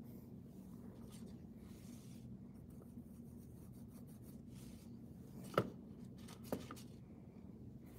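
Faint scraping of nail polish across a metal nail stamping plate, with two sharp clicks about a second apart past the middle. A low steady hum runs underneath.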